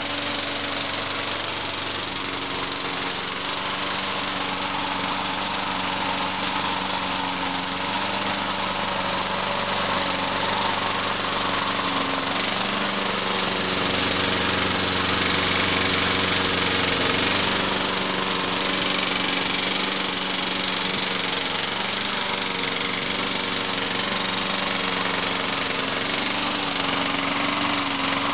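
Craftsman lawnmower's small gasoline engine running steadily on its own with the fuel shut off, burning the last gas left in the carburetor. It gets a little louder about halfway through.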